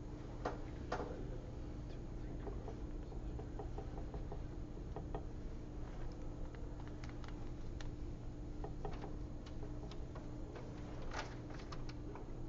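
Steady low room hum with scattered light clicks and taps from sponge-painting at a table, as paint is dabbed onto a test piece and the sponge is dipped in a metal mixing palette. A quick cluster of taps comes near the end.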